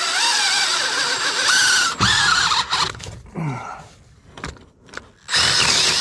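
Cordless drill boring down through the wooden top plate of a wall, its motor whining under load with a wavering pitch. It stops about two seconds in, then runs again in short bursts, the last one near the end.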